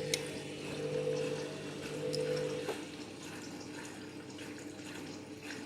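Candy washing machine filling for its softener rinse: water running in through the softener compartment into the drum. A steady low hum runs with it, part of which cuts out about two and a half seconds in.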